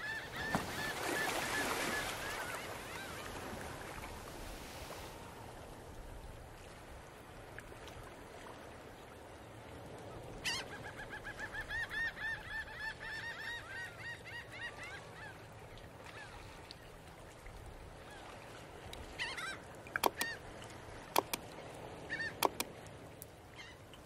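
Geese honking in quick repeated calls, in two bouts: one at the start with a rushing noise behind it, and another about ten seconds in. A few sharp clicks come near the end.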